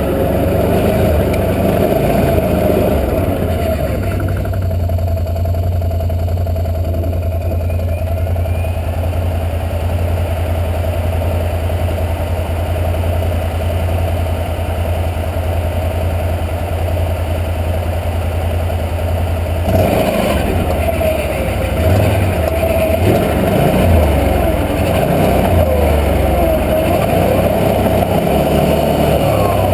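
Can-Am 650 XMR ATV's V-twin engine idling steadily, then revving up about two-thirds of the way through as the machine pulls away and runs on at varying throttle.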